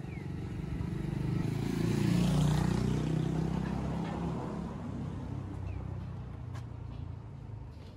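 A motor vehicle passing close by on the street, its engine and tyres swelling to their loudest about two and a half seconds in and then slowly fading away.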